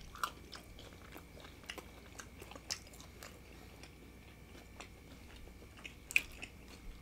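People chewing tacos: irregular wet clicks and smacks of biting and chewing, the sharpest about a quarter second in and again near the end.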